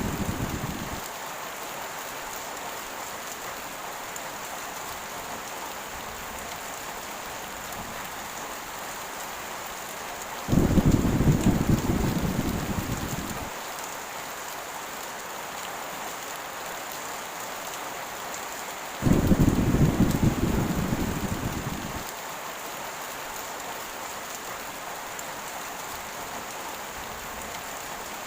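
Heavy rain falling in a steady hiss, with rolls of thunder: one dies away in the first second, then two more break in suddenly about ten and nineteen seconds in, each rumbling low and fading over about three seconds.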